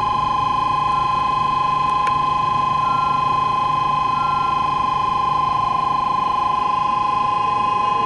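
Loud, continuous electronic ringing on two steady tones with a fast flutter: a station platform signal sounding without a break, described as loud.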